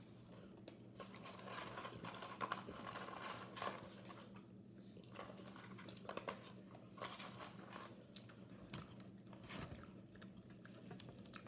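A person chewing food close to the microphone: faint, irregular crunches and wet mouth clicks, with a steady low hum underneath.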